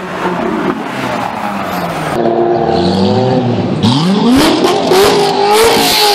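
High-performance car engine, running at a steady note at first, then revving hard about four seconds in, its pitch climbing steeply and holding high, with a few sharp cracks.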